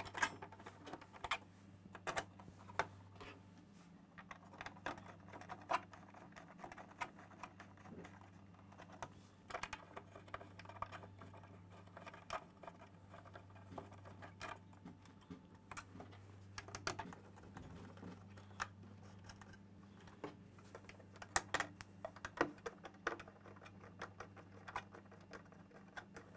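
Irregular light clicks and taps of hands and a hand tool on the mower's plastic battery housing as its fixings are screwed back in, over a faint steady low hum.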